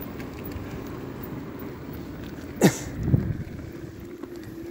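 Steady low rumble of riding a bicycle with wind on the microphone. A little over halfway through, a short, loud squeal drops sharply in pitch, followed by a brief low sound.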